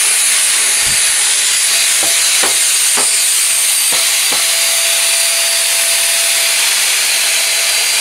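Euroflex Monster handheld vacuum running without its filter, a loud steady high hiss with a thin whine that sets in about two seconds in. A few short clicks come through as bits of broken plastic are sucked in.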